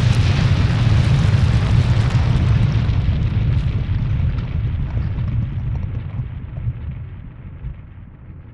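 A deep, noisy rumble like the tail of an explosion, dying away steadily, its hiss fading first and the low rumble last.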